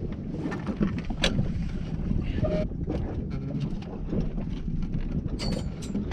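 Wind buffeting the microphone on a fishing boat's deck, over a steady low rumble, with scattered sharp knocks and clicks throughout.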